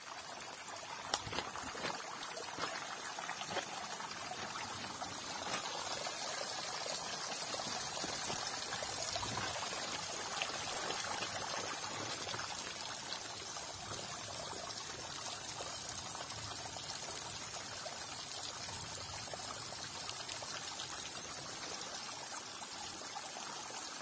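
Thin streams of water trickling and dripping steadily down a mossy rock face onto wet stones: a small, low-flow waterfall that runs drop by drop rather than falling in a sheet.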